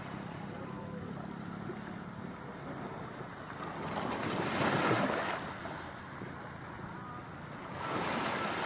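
Sea waves washing onto the shore over a steady rush of surf. Two waves swell up and fall away, one about halfway through and one near the end.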